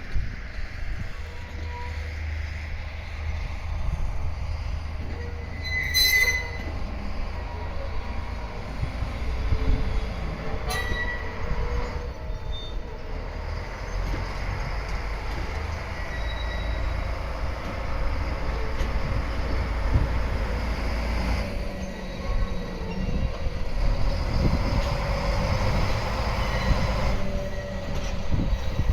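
A switcher moving E231 series 800 train cars slowly: a steady low rumble, with the wheels squealing in high tones off and on and two sharp clanks about 6 and 11 seconds in.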